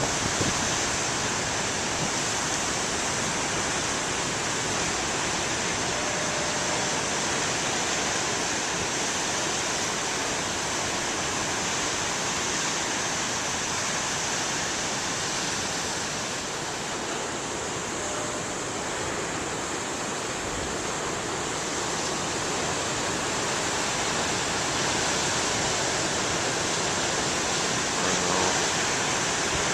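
Big ocean waves breaking and washing ashore, a continuous rush of surf that eases slightly partway through and builds again.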